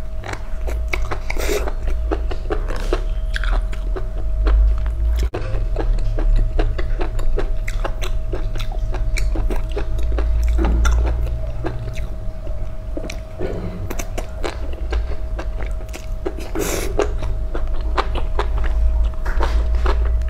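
Close-miked eating: fried enoki mushrooms bitten off skewers and chewed, with many small crunches and wet mouth clicks. A steady low hum runs underneath.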